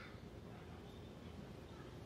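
Quiet background: a faint steady low hum with no distinct event, and a brief faint high chirp at the very start.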